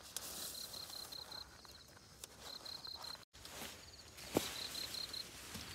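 Crickets chirping in runs of quick high pulses. The sound drops out for an instant partway through, and a single sharp click comes near the end.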